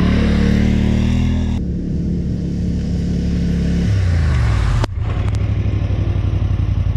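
Polaris Sportsman 1000 XP Touring ATV's twin-cylinder engine revving while spinning donuts in sand, its pitch rising and falling. From about five seconds in it settles into an idle with an even, rapid pulse.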